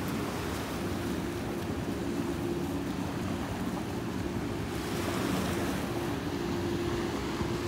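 Steady ocean surf with wind buffeting the microphone, and a faint steady hum underneath.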